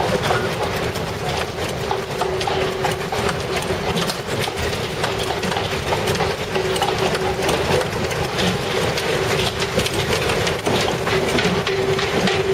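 Continuous rumbling with dense rattling and clattering throughout and a steady hum beneath, typical of a building and its contents shaking in an earthquake.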